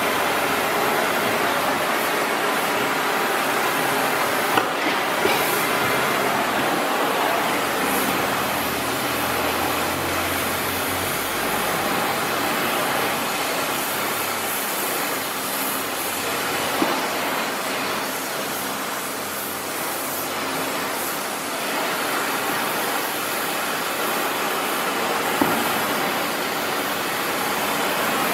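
Gas torch flame hissing steadily as it heats a steel gear-shift lever clamped in a vise so the rod can be bent. Three short sharp metal clicks are spaced through it.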